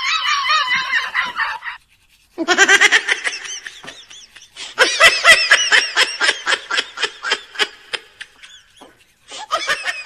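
High-pitched, rapid laughter in quick pulses, coming in about four bouts separated by short breaks.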